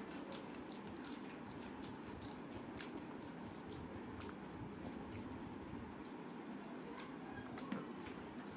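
Fingers mixing and squeezing boiled rice with dal and mashed potato on a steel plate: soft wet squishing with many small scattered clicks, over a steady low background noise.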